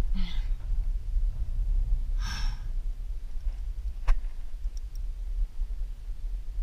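A climber's two heavy exhales, the second louder and longer about two seconds in, over a steady low wind rumble. A single sharp click comes just after four seconds.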